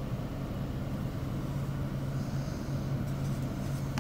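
Emerson Quiet Kool window air conditioner running with its compressor cycled off: the fan blows steadily with a constant low motor hum. Paper rustles briefly near the end.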